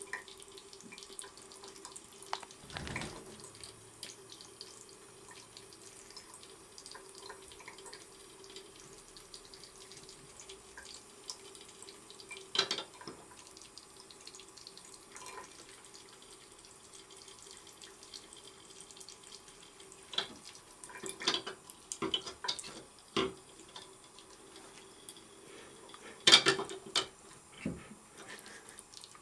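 Kitchen or bathroom faucet running steadily into a sink, with a steady hum under the rush of water. Sharp splashes and knocks break in now and then: once near the start, once around the middle, a quick cluster later on, and the loudest near the end.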